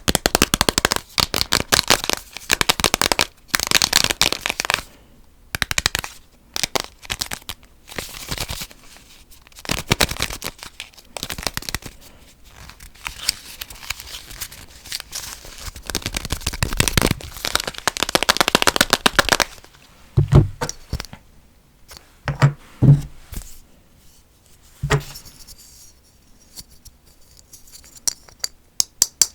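Fast ASMR tapping and scratching on assorted small objects. Dense runs of quick strokes last for most of the time, then a few separate, deeper knocks come about twenty seconds in, followed by sparser light clicks.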